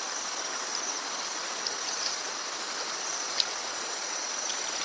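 Running water of a stream, a steady rushing hiss, with a thin steady high-pitched whine above it and a small click about three and a half seconds in.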